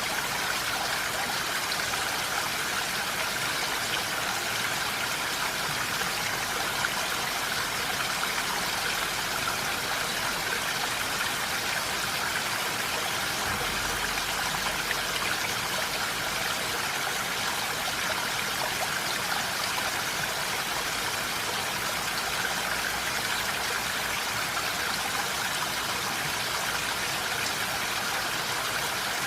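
Steady, even hiss of water with no distinct drops, pauses or changes.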